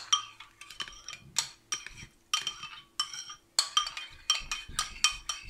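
Metal spoon clinking and scraping against a ceramic bowl in an irregular run of short ringing taps, about two or three a second, as squash purée thinned with water is scraped out of it.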